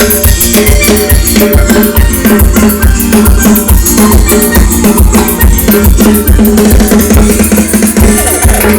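Live band playing an instrumental passage between sung verses: a drum kit keeps a steady dance beat, with keyboard over it.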